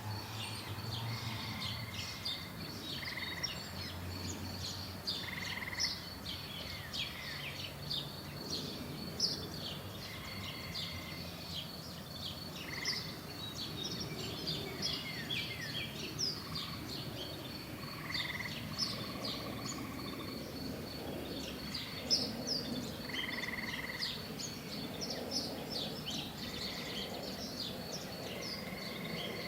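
Several birds chirping and singing, with many short, quick calls overlapping and some repeated short whistled notes. Underneath runs a steady, thin high-pitched whine and a low background rumble of outdoor noise.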